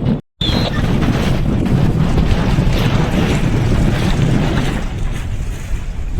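Strong wind buffeting the microphone aboard a sailboat, a loud low rushing that drowns most else, with water noise mixed in. It drops out for an instant just after the start.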